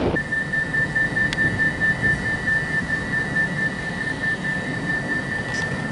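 Class 390 Pendolino's door-closing warning: a high, rapidly pulsing beep starting just after the start and sounding steadily, the alert that the doors are about to shut, over the low hum of the standing train.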